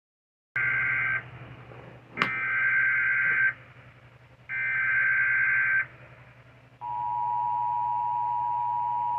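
Emergency Alert System broadcast start: three bursts of shrill SAME header data tones about a second apart, then, about seven seconds in, the steady two-tone attention signal, over a low hum. This marks the start of a new emergency alert. A sharp click sounds just after two seconds in.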